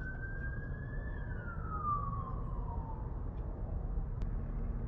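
Police siren wailing outside, one slow rise in pitch and then a long fall, over a low traffic rumble, heard from inside a parked car.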